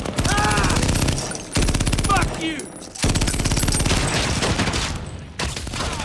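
Automatic rifle fire in long rapid bursts, the dense chatter of a firefight, breaking off briefly about a second and a half in and again just before three seconds, then easing near the end.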